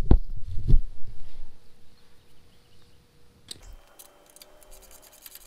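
Hand wrench clicking against the metal bolts of a mower's discharge chute as they are loosened: a few sharp clicks in the first second, then a few faint clicks.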